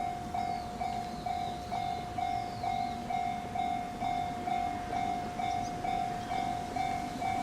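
Japanese level-crossing alarm ringing its electronic bell, a single-pitched ding repeating about twice a second, which signals that the barriers are down. A low rumble of rail traffic runs underneath and grows a little louder near the end.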